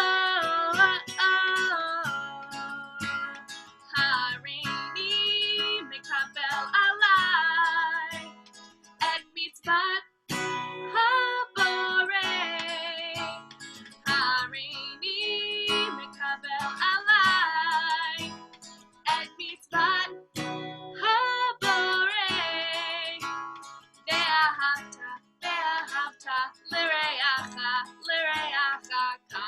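A voice singing with vibrato over strummed acoustic guitar, in phrases with short breaths between them.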